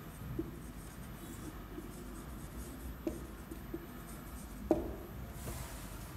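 Marker pen writing on a whiteboard: faint scratching strokes with several small taps of the tip, the sharpest tap about three-quarters of the way through.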